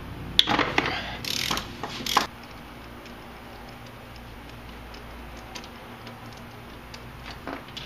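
Ratchet wrench with a socket and extension turning out a bolt on top of a steering gearbox, with louder metal clanks and scrapes in the first two seconds, then faint ratchet ticks.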